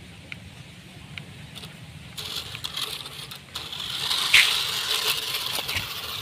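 Toy RC off-road truck driving off, its tyres rattling and crunching over gravel and a tarp spread with rice grains. The rattle starts about two seconds in and is loudest near the middle.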